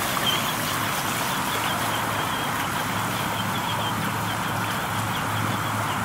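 Traxxas TRX-4 Sport RC crawler driving through a shallow, rocky creek: the steady hum of its electric motor and drivetrain under the rush of splashing, flowing water.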